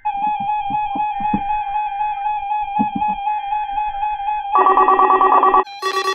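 Electronic signal tones on a NOAA Weather Radio broadcast: a steady tone with warbling higher tones, then about four and a half seconds in a loud, harsh burst of data tones lasting about a second, with another burst starting near the end. These are the Emergency Alert System SAME header bursts that open a Required Weekly Test.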